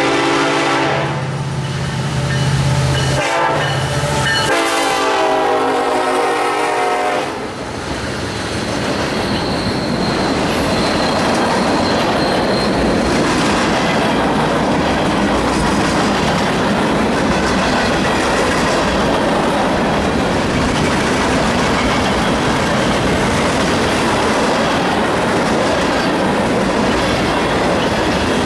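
Union Pacific freight locomotive's air horn sounding in long chord blasts for the first seven seconds or so, with a short break. After that comes the steady rumble and clickety-clack of freight cars rolling past, with a thin wheel squeal around ten seconds in.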